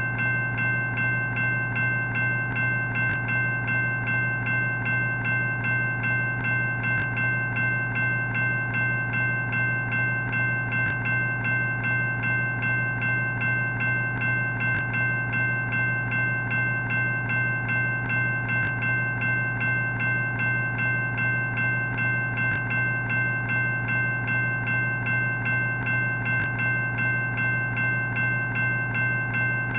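Railroad crossing warning bell ringing continuously, the same ring repeating at an even, quick pace.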